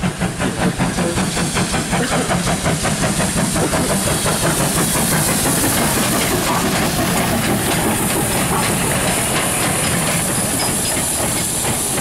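Great Western steam locomotive moving slowly past, with quick exhaust chuffs over a hiss of steam. After about four seconds the chuffs merge into a steady loud hiss.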